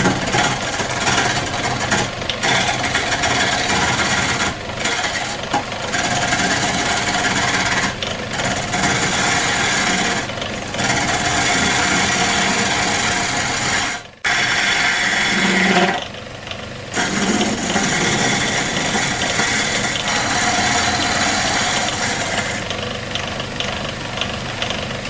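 A reground old chisel cutting and scraping against a wooden bowl blank spinning on a homemade motor-driven lathe, truing up the outside, with the lathe's motor running underneath. The cutting noise is harsh and continuous, broken by several brief gaps as the tool comes off the wood, with one sudden short silence about halfway through.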